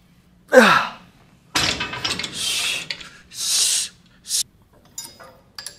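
A man's strained groan that falls in pitch, about half a second in, then several heavy breaths in and out, from the effort of pec deck flyes.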